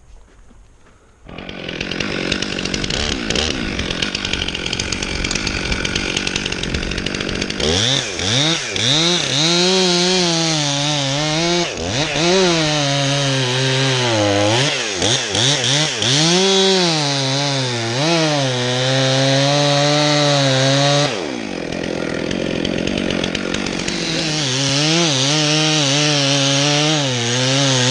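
Gas chainsaw starting suddenly about a second in and cutting into a large tree trunk. The engine note rises and falls over and over as the chain loads up in the wood. It settles lower for a few seconds about three quarters of the way through, then revs and cuts again near the end.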